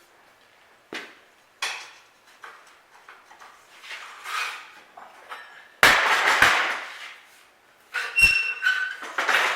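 Steel gate-latch parts clanking and knocking against a homemade metal bender as another latch is set up and bent. There are a few light knocks, a loud clank about six seconds in, and ringing metal strikes near the end.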